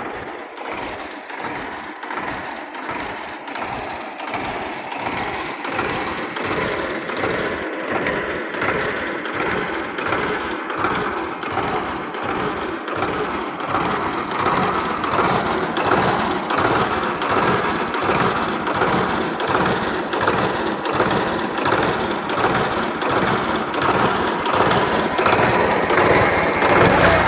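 Belarus tractor's diesel engine idling with a steady clatter, growing louder toward the end.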